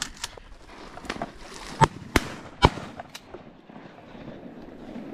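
Several shotgun shots in quick succession, the three loudest close together about two seconds in, with fainter reports around them.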